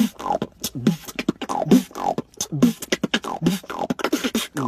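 Solo human beatboxing freestyle: a steady, fast rhythm of sharp mouth clicks and hissing snare and hi-hat sounds, with a pitched bass sound that bends in pitch about once a second.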